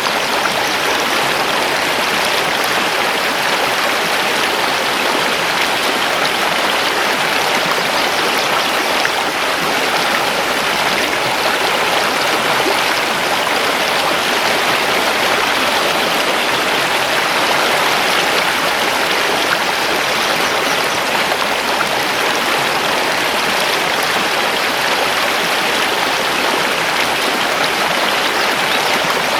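Mountain river flowing over stones, a steady, even rush of water with no change in level.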